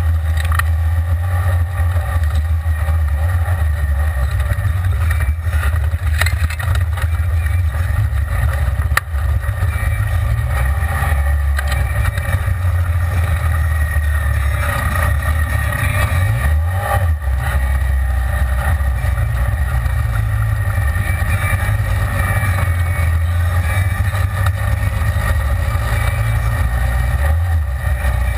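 Side-by-side UTV's engine and drivetrain running steadily while driving along a dirt trail, heard from inside the open cab as a loud low drone, with a few brief knocks.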